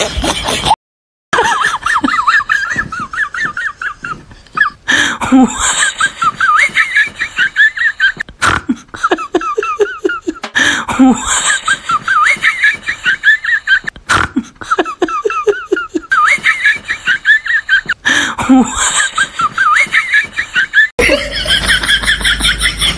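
High-pitched laughter, the same laugh coming round again several times over: a comic laughter sound effect.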